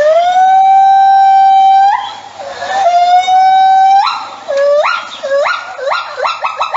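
A small animal crying: two long, high, whining notes, each rising at the start and then held for about a second or two, followed by a quick series of short rising yelps.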